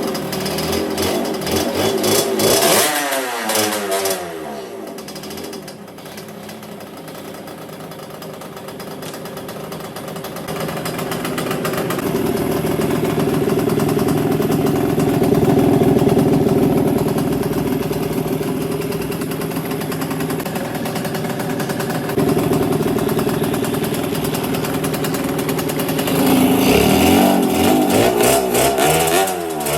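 Yamaha Banshee 350's twin-cylinder two-stroke engine running and being revved: quick revs at the start, dropping back to a quieter idle, then a long steady run at higher speed, with more quick up-and-down revs near the end.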